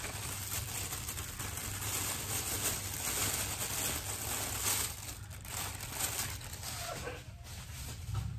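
Crinkling and rustling of packaging as a camera is unwrapped by hand, a continuous handling noise that eases off near the end.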